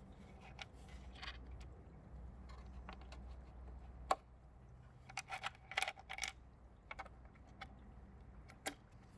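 Small metal screws clicking and clinking as they are handled and set into their holes in the tail fairing: scattered sharp clicks, with one loud click about four seconds in and a quick run of clicks soon after.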